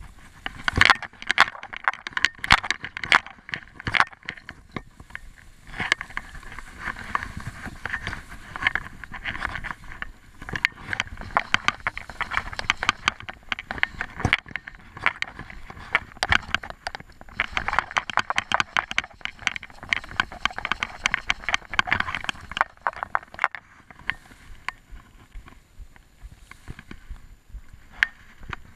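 Close crackling and scraping in bursts, with a few short pauses: tall grass stalks and fishing gear rubbing against the microphone.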